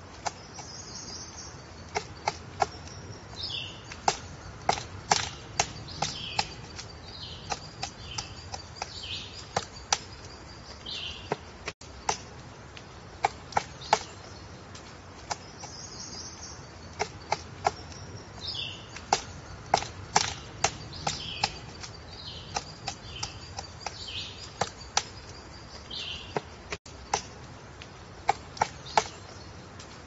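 Pileated woodpecker hammering and chiselling into a tree trunk at the edge of a large excavated hole: single hard knocks at an uneven pace, sometimes in quick clusters, not a steady drumming roll.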